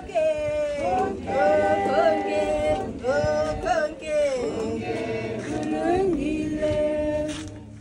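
A group of voices singing together unaccompanied, in harmony with held, sliding notes. The singing dies away near the end.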